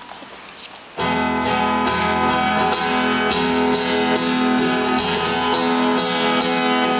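Acoustic guitar strummed in a steady rhythm of about two to three strums a second, starting about a second in after low room noise.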